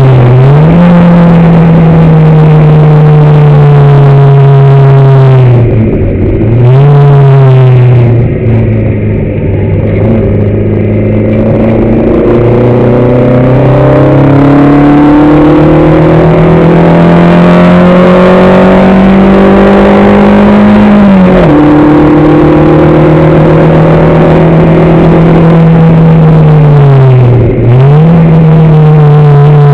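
On-board sound of a racing car's engine under hard acceleration, its note climbing steadily, with quick drops in pitch at gear changes about 6 seconds in, around 21 seconds and near the end. It eases a little between about 8 and 12 seconds.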